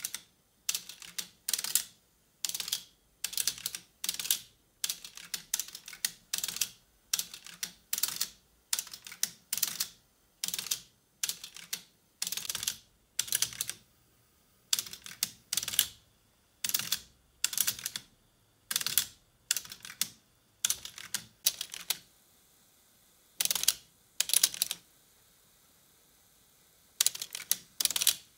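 Sharp mechanical clicks and clacks from an opened Sony twin cassette deck mechanism, coming singly or in quick pairs, about one or two a second, with longer pauses in the last few seconds.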